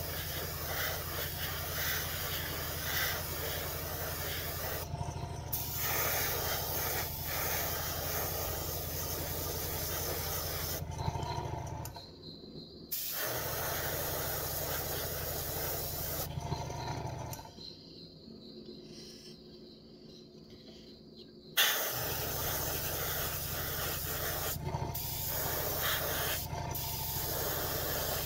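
Airbrush spraying paint, a steady hiss of air and paint over the low hum of its air compressor. The spray stops briefly about twelve seconds in and again for about four seconds around eighteen seconds in, then starts again abruptly.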